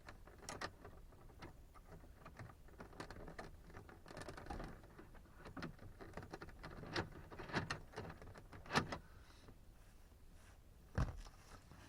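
Scattered clicks, taps and light rustling of small plastic parts as a door lock piece is fitted back onto a Corvette door panel, with one heavier dull knock near the end.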